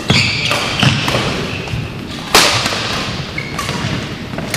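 Badminton rackets smacking a shuttlecock in a fast doubles rally: three sharp hits, the loudest about two and a half seconds in. Court shoes squeak briefly on the floor between the hits.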